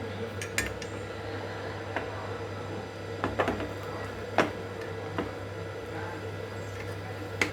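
Kitchen utensils and dishes clinking in a handful of separate sharp knocks, a few close together near the middle, over a steady low hum.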